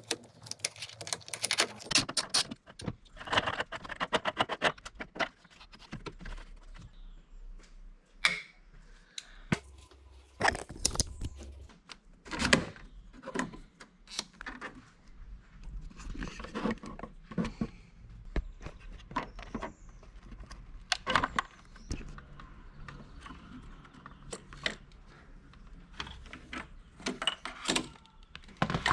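Hand tools working on an engine: a socket ratchet clicking in quick runs, with metal tools and parts clinking and knocking in short bouts.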